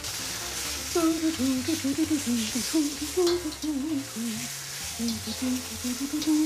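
Raw sliced pork frying and sizzling in hot oil and chili paste in a wok, stirred with a metal spatula, with a steady crackling hiss. A low wandering tune runs underneath from about a second in.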